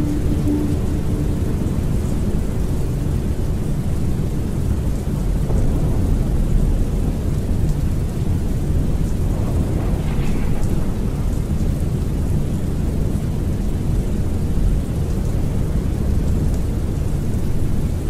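Steady rain with low rumbling thunder, a recorded storm ambience. The last held note of music dies away in the first second.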